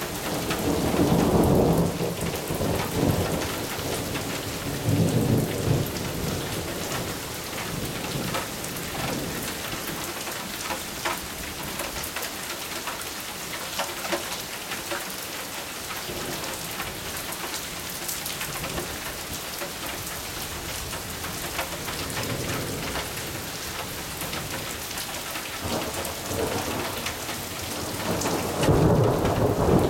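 Thunderstorm: steady rain falling, with rolls of thunder about a second in and again around five seconds, a fainter rumble later, and a louder roll of thunder building near the end.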